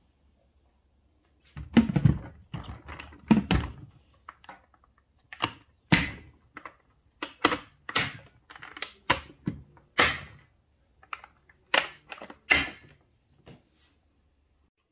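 Lid of a Stanley Fast Flow plastic water jug being fitted and clamped down with its latches: a series of sharp plastic clicks and knocks, with heavier thunks about two and three and a half seconds in.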